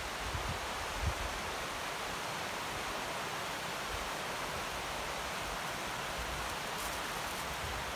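Steady, even rushing noise, with a low thump about a second in.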